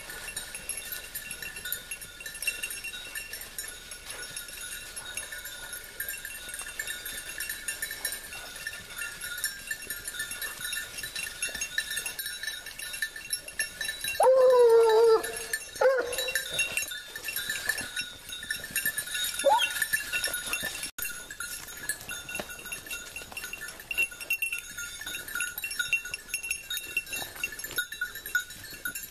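Hunting hounds working a scent. About halfway through, one hound gives a loud, wavering bay lasting about two seconds, followed by a brief second cry a few seconds later. A steady high jingling, like the pack's collar bells, runs underneath.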